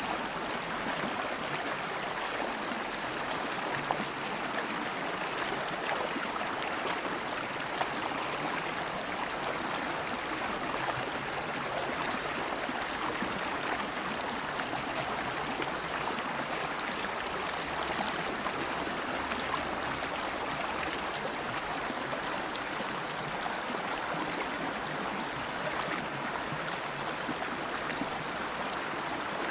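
River water flowing steadily over rocks, a continuous rush with faint splashes and gurgles.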